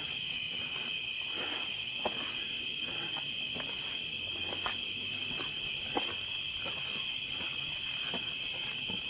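Steady chorus of crickets keeping up one constant high trill, with a few sharp ticks or snaps scattered through it.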